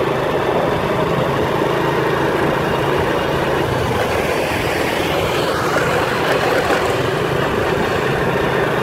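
Motorbike engine running steadily while riding along a road, with an even rush of wind and road noise over a low engine hum.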